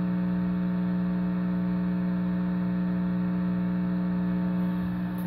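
Steady electrical hum with hiss from a guitar rig left idle, heard through the amplifier and its speakers with no notes played. The hum and hiss come from a Boss RC-30 looper in the signal chain.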